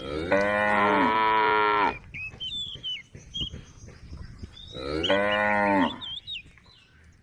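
A cow mooing twice: a long moo of about a second and a half just after the start, then a shorter one about five seconds in. Small birds chirp between the calls.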